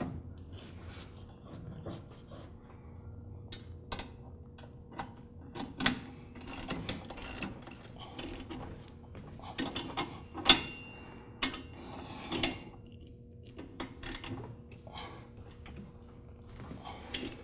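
Ratchet wrench clicking in irregular runs as it drives the centre bolt of a lawn tractor's motor pulley from below, with a few sharper metal clacks in the second half.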